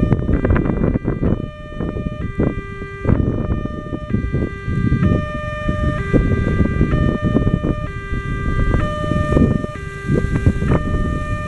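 Electronic level-crossing alarm sounding a repeating melody of clear stepped tones, each note held about half a second and the phrase repeating every two to three seconds: the warning that a train is about to pass. A steady low rumble runs underneath.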